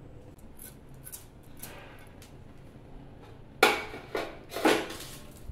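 Dry seeds poured from a spoon into a steel frying pan: three quick clattering rattles about three and a half seconds in, with faint scattered ticks before them.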